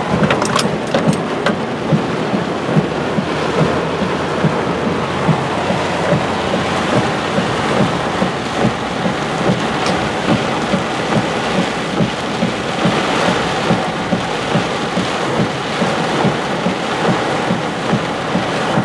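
Heavy rain beating on a vehicle's roof and windshield, heard from inside the cab: a loud, dense patter with many irregular sharper hits.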